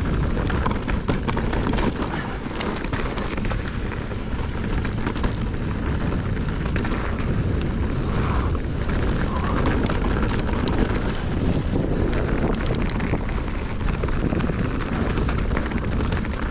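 Wind rushing over the microphone and knobby tyres rolling over a dirt trail as a Specialized Stumpjumper mountain bike is ridden, a steady rush with many small clicks and rattles from the bike and trail.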